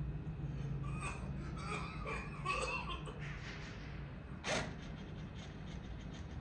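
A person coughing: a run of short voiced coughs between about one and three seconds in, then one sharp cough about four and a half seconds in.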